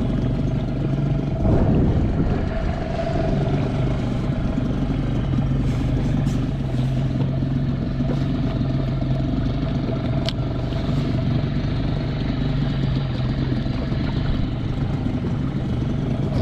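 Small outboard motor on an inflatable skiff running steadily at low speed, an even low drone, with a brief rush of wind or water noise about a second and a half in.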